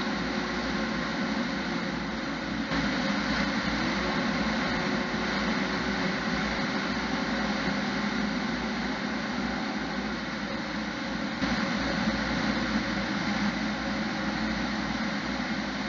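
Fire engine's engine running under way with steady road and cab noise, heard from inside the cab. Its hum rises slightly in pitch about four seconds in and drops about ten seconds in.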